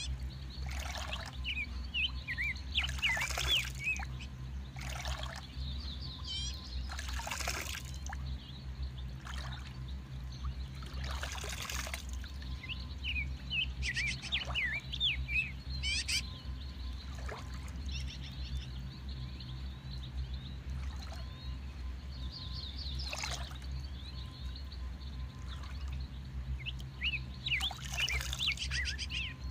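Birds chirping repeatedly, with short splashes of water every couple of seconds, over a steady low hum.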